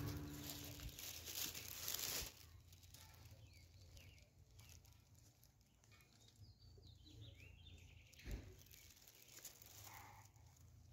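Faint outdoor ambience: a rush of noise for the first two seconds that cuts off abruptly, then quiet with faint bird chirps and a single knock about eight seconds in.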